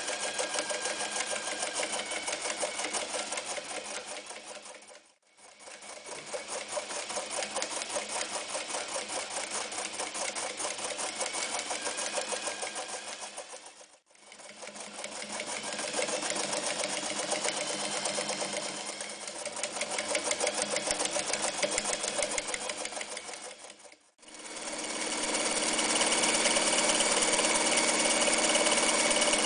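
Janome New Home 551 electric sewing machine stitching, a fast, even run of needle strokes. It slows to a stop three times and starts up again, running louder for the last few seconds.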